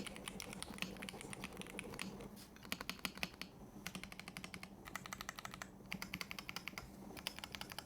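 Typing on an ROG Azoth mechanical keyboard fitted with factory-lubed ROG NX Brown tactile switches: a fast run of keystrokes broken by a few short pauses, with the pings and clacks kept down by its dampening material.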